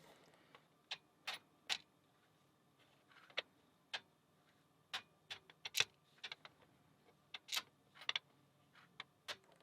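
Light, irregular clicks and taps of small metal lock parts (pins, springs and the core of a pin-tumbler lock) being handled and set down on a work surface as the lock is taken apart.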